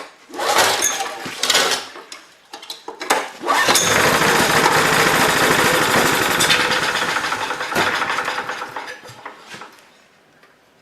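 Honda EM3000 generator's engine, long unused with a clogged carburetor and on choke, being pull-started. A couple of short pulls, then it catches about three and a half seconds in and runs for several seconds before fading out and dying.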